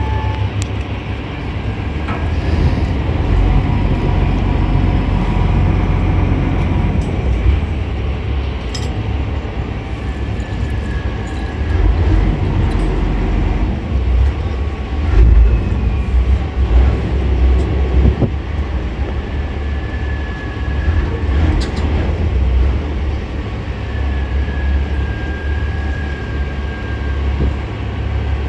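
Strong wind buffeting a phone's microphone aboard a moving boat: a heavy, uneven low rumble that swells and drops with the gusts, loudest about fifteen seconds in.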